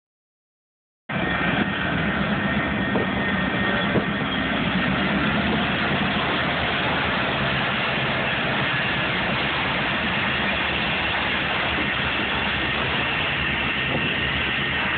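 Santa Fe EMD F-unit diesel locomotives passing close by: a steady low engine drone, strongest in the first few seconds, giving way to a continuous rumble as the passenger cars roll past. The sound starts abruptly about a second in.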